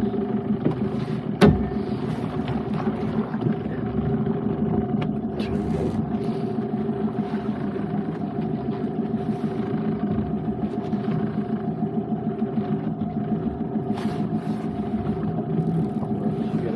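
Small boat's Honda outboard motor idling steadily, with a single sharp knock about a second and a half in.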